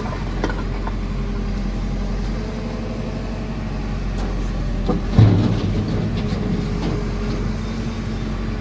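JCB 4CX backhoe loader's diesel engine running steadily while it works, with one heavy clunk about five seconds in.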